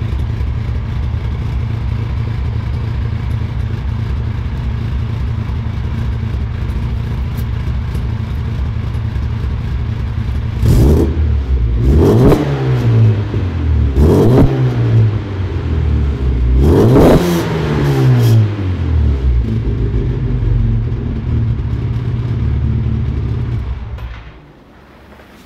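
Classic Mini 1.3i's four-cylinder engine through a John Cooper kit exhaust. It idles steadily, is blipped four times, rising and falling in pitch each time, settles back to idle, then is switched off near the end.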